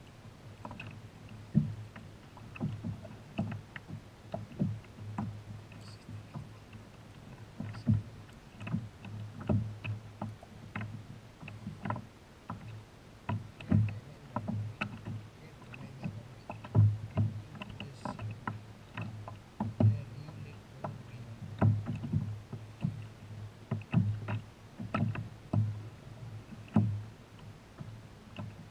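Irregular knocks and low thumps on a kayak's hull, some loud, coming every second or so, over faint water noise.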